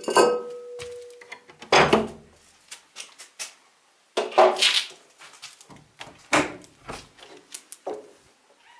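Handling noise from a handheld camera being carried and moved: a string of knocks, bumps and rustles. The loudest come about two seconds in and again just after four seconds, with a thin steady tone held for about a second and a half at the start.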